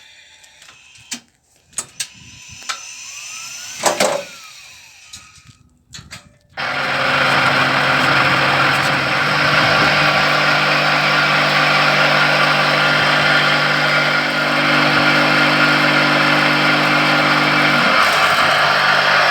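Cinder and sand block making machine starting about six and a half seconds in, then running with a loud, steady mechanical noise over a low hum. Scattered knocks and clatter come before it starts. Near the end the low hum drops out while the noise goes on.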